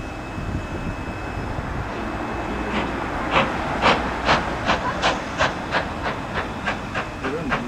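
Steam locomotive pulling away over a steady hiss of steam; its exhaust beats start about a third of the way in and quicken steadily as it gathers speed.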